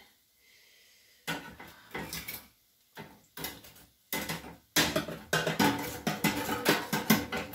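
Metal slotted spatula scraping and clinking against an oven's wire rack as dried fish pieces are pried off. A few separate clinks at first, then almost continuous clatter from about five seconds in.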